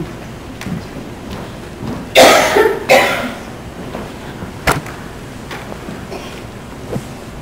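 A person coughing twice in quick succession, followed a couple of seconds later by a single sharp click.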